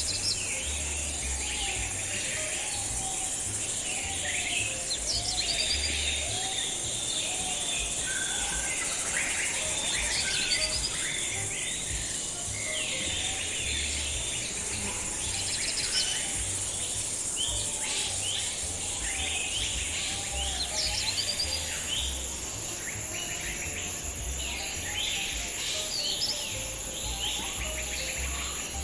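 Many birds chirping and singing in overlapping short calls and trills over a steady high insect drone, like crickets or cicadas, with a low rumble underneath.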